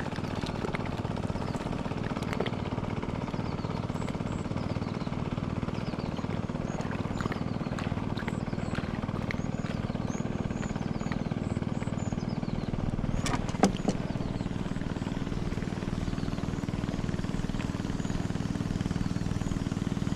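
Longtail boat engine running steadily on the river, growing a little louder toward the end as it approaches. Birds chirp faintly in the middle, and two sharp knocks come about two-thirds of the way through.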